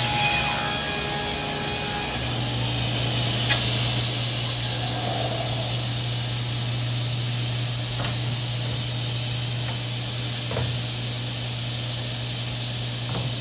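SCM Minimax SC4 Elite sliding table saw running at speed: a steady high whine from the spinning blade over a low motor hum, with a few sharp knocks, one clear one about three and a half seconds in.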